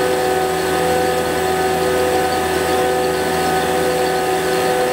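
Fieldpiece VP85 DC-motor vacuum pump running steadily with its gas ballast open, pulling vacuum on the hoses at around 700 microns. It makes an even whine of several steady tones over a hiss.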